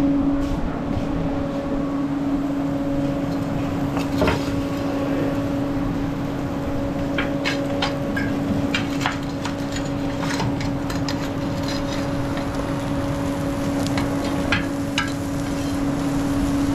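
Street ambience: a steady mechanical hum under a background din, with sharp clicks and knocks, one about four seconds in and a scattered run of them from about seven seconds on.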